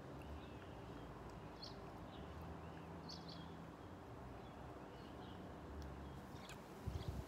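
Faint outdoor ambience: scattered small bird chirps over a steady low rumble, with a few faint clicks and a brief low thump near the end.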